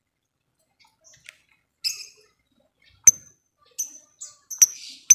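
Lovebird calling in short, sharp, high chirps. They come a few at a time at first, then quicken into a rapid clicking series near the end.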